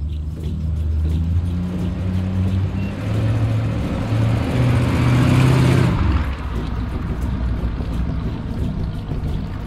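GM small-block 350 V8 in a 1929 Ford Model A hot rod running as the car drives past, engine pitch rising over the first six seconds. It is loudest about six seconds in, then drops suddenly to a lower running sound as the car pulls away.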